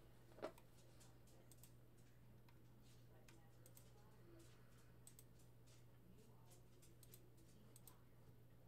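Near silence: faint, scattered clicks of a computer keyboard and mouse, one slightly louder about half a second in, over a low steady electrical hum.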